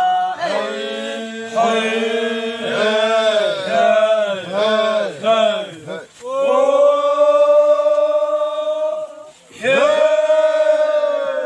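Voices chanting: a run of short rising-and-falling phrases about two a second, then a long held note, broken off for a moment before another long note begins near the end.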